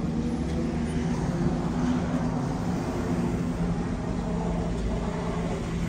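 Ferrari SF90 Stradale's twin-turbo V8 running at low revs as the car drives slowly past and away, a steady engine note without revving.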